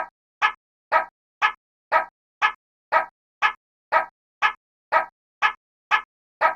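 Railroad crossing warning alarm sounding: short ringing tones repeated evenly about twice a second, each dying away quickly.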